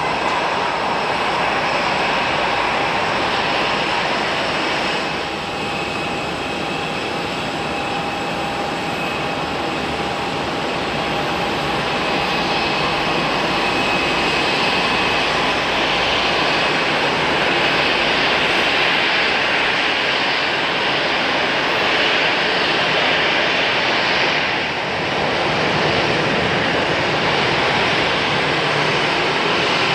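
Jet airliner engines running: a steady, loud rushing noise with a high whine. It dips briefly about five seconds in and again near twenty-five seconds.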